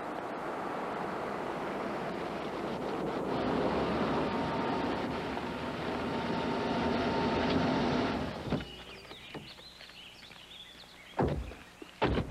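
Car driving, a steady rush of engine and tyre noise that grows louder and then cuts off abruptly about eight seconds in. Quieter scattered clicks follow, then two loud thumps near the end.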